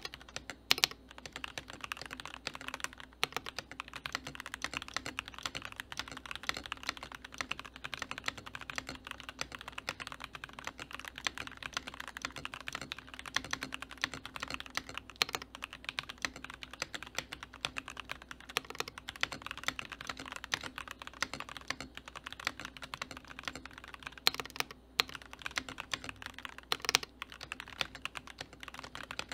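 Fast, continuous typing on a Keychron V3 mechanical keyboard with K Pro Red linear switches and PBT keycaps: a dense stream of key clacks with a few louder strikes now and then.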